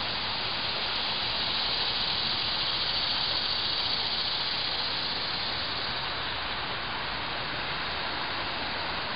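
Steady hiss-like background noise with no distinct events, swelling slightly a couple of seconds in and easing off again.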